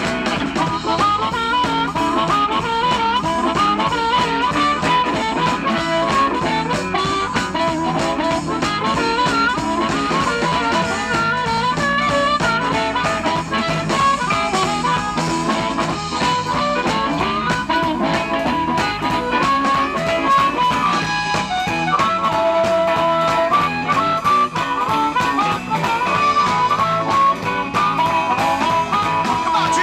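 Live blues band in an instrumental break: a harmonica, cupped to a microphone, plays a solo of wavering, bent notes over electric guitar, bass, drums and keyboard.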